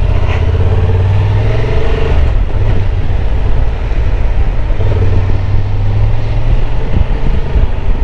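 Honda Transalp 750's parallel-twin engine pulling away and accelerating, with its steady hum easing off about two seconds in and picking up again around the five-second mark.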